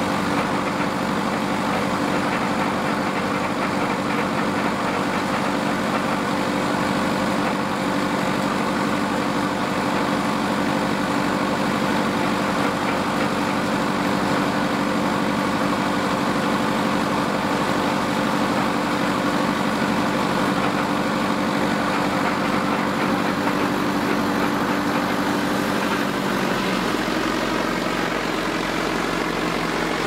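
Old stationary engine power unit running at a steady speed, belted to drive a vintage sawmill. About three-quarters of the way through, its steady note changes and drops lower.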